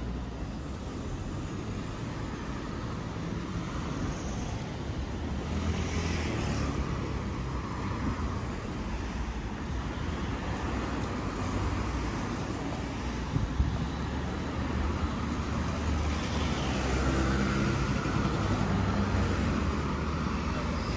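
Road traffic: a steady low rumble of vehicles, with cars passing by about six seconds in and again around sixteen seconds in, and a short sharp click in between.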